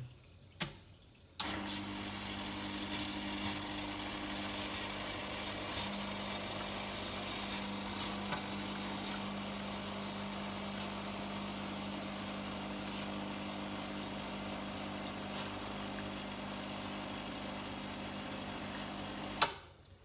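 Home espresso machine's pump running steadily, a hum with hiss, as it pushes descaling solution through the group head into a cup. It starts about a second and a half in and stops with a click near the end.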